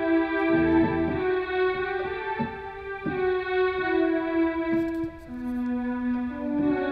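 Instrumental background music: held notes that change pitch about once a second, with light plucked attacks.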